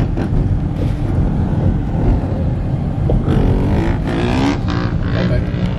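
Dirt bike engine running while riding, loud and steady, with the engine pitch rising briefly about four seconds in.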